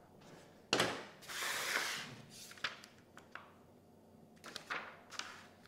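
A single knock on a table about a second in, then about a second of rustling paper as the printed instruction manual is handled, followed by a few light clicks and taps.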